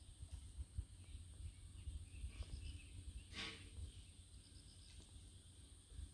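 Faint outdoor ambience of insects: short pulsed chirps repeating about every two seconds over a steady high-pitched drone, with a low rumble underneath and a single sharp click about halfway through.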